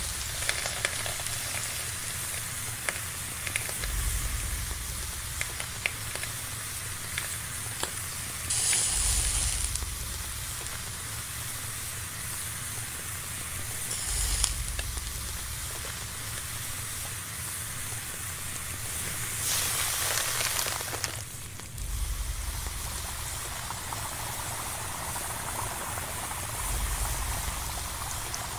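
Rubber eraser sizzling and crackling as it burns and melts in a flame, with a steady hiss, scattered crackles and three louder rushes of hiss. A low rumble swells and fades every few seconds.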